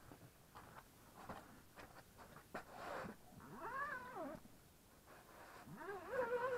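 Two drawn-out pitched calls, each rising and then falling in pitch, the second longer and running out near the end. Before them come a few light knocks and rustles.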